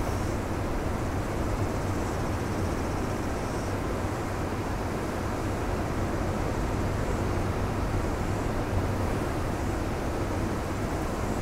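Ocean surf breaking along a rocky beach: a steady, even rush of wave noise with a deep rumble underneath.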